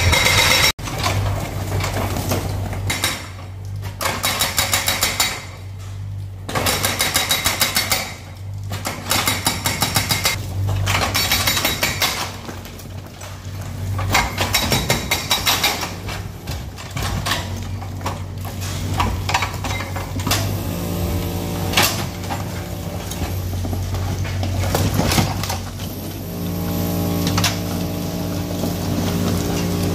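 Mini excavator's hydraulic breaker hammering at a brick and stone wall in repeated bursts of rapid blows, over the steady running of the machine's diesel engine. In the last few seconds the machine gives a steadier droning tone.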